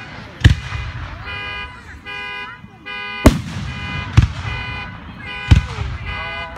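Aerial firework shells bursting in sharp bangs, about half a second in, twice between three and four and a half seconds, again near five and a half seconds and at the end. Between the bangs a steady-pitched electronic tone sounds in short blasts that repeat, like a car alarm going off.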